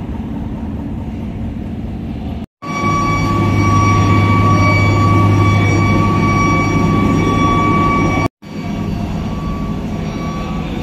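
Heavy vehicle engines in three clips cut together: a steady engine drone, then from about two and a half seconds in a truck-mounted crane's diesel running much louder with a strong low hum and a steady high whine, then after a sudden cut about eight seconds in, a lowbed trailer truck's engine running more quietly.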